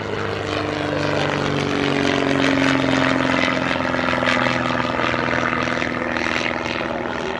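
Propeller-driven airplane flying past: a steady engine drone that swells to its loudest about three seconds in and then eases off, its pitch dropping slightly as it goes by.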